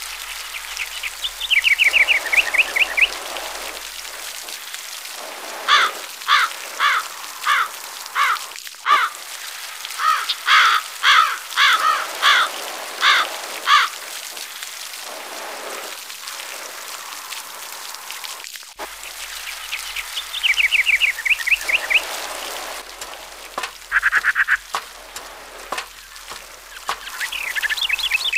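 A thin stream of water from a toy hand pump spattering onto mud, under wild birds calling: quick trills near the start and again about two-thirds in, and a run of about a dozen loud call notes, roughly two a second, in the middle.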